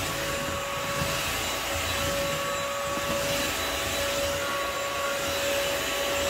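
Upright wet-dry vacuum mop running steadily as it is pushed across the floor: an even motor whir with a steady whine.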